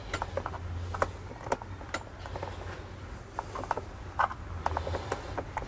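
A small pry tool working the two plastic halves of a Mercedes W211 electronic ignition switch (EIS) housing apart, with irregular small plastic clicks and ticks as the tabs give. A low steady hum runs underneath.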